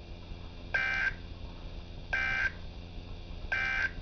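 Three short buzzy bursts of Emergency Alert System digital data (the end-of-message code) from a NOAA Weather Radio broadcast, just under a second and a half apart, marking the end of the severe thunderstorm warning.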